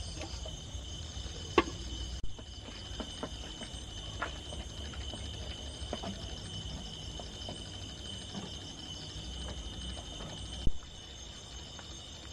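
Steady high insect chirring throughout, with scattered light clicks and taps. Two sharp knocks stand out, one about a second and a half in and one near the end.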